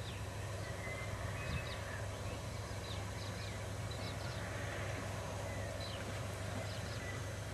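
Scattered short bird chirps and calls from several birds, over a steady low hum and faint outdoor background noise.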